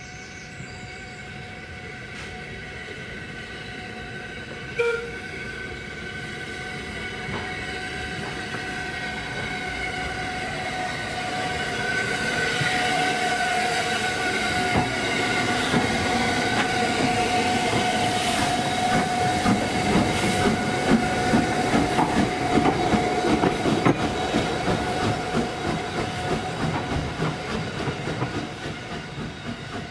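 A steam train approaching and running past, growing louder over the first dozen seconds, with a steady ringing tone and a rhythmic beat about once a second as it goes by. There is one short sharp sound about five seconds in.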